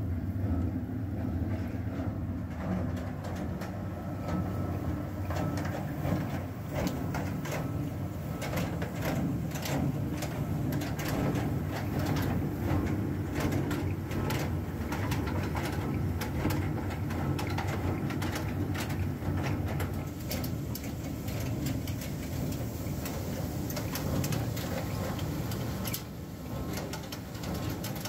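Cable-recycling machinery running with a steady low hum. Over it is a dense, irregular rattle of small clicks as shredded coax-cable granules fall onto a screen.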